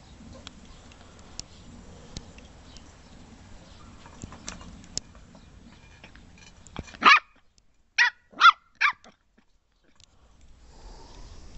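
Sealyham Terrier puppy barking in short high yaps: one about seven seconds in, then three quick ones about a second later.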